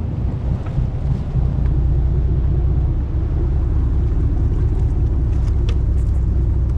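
Steady low rumble of a sportfishing boat's engine, with wind buffeting the microphone.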